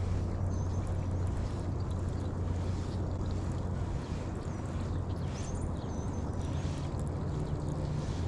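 Steady low rumble of wind on the action camera's microphone, with a few short, high bird chirps.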